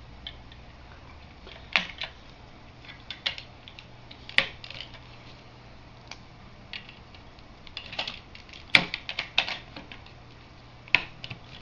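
Plastic LEGO bricks clicking and clattering as they are handled and pressed together, a string of irregular sharp clicks with a few louder snaps spread through.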